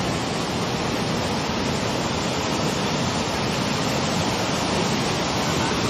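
Steady, even rushing of surf and moving sea water from a tsunami surge, with no distinct breaks or splashes.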